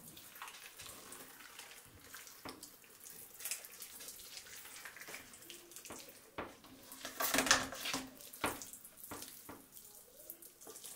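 Hands pushing duck mousse under the skin of a raw whole turkey: faint, irregular wet squelching and the rubbing of skin over meat, with a few louder squelches about seven and eight seconds in.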